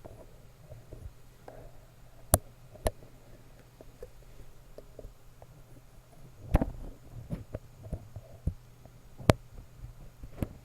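Close-miked tapping and handling noise: about five sharp taps or knocks spread through, with softer rubbing and small clicks between them, over a low steady hum.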